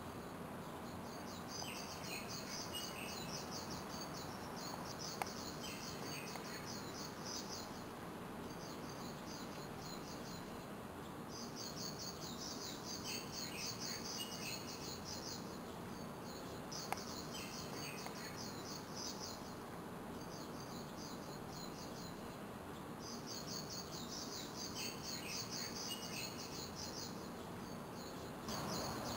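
Outdoor nature ambience: high, rapidly pulsing trills repeated in phrases of two to three seconds, with short chirps between them, over a steady hiss. Two faint clicks stand out, about five seconds in and again past the middle.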